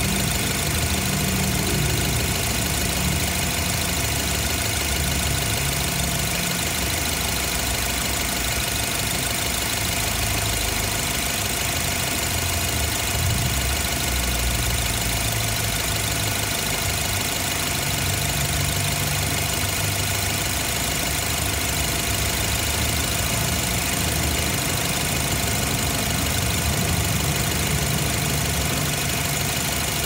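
BMW X3 F25 engine idling steadily, heard up close in the engine bay, with a steady whine above the low running.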